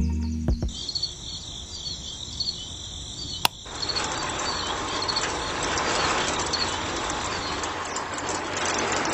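A rocker switch clicks about three and a half seconds in, and the miniature home-made concrete mixer's small electric motor starts turning its drum with water in it, giving a steady whir and rattle. Music fades out at the start, and a faint high chirping runs underneath.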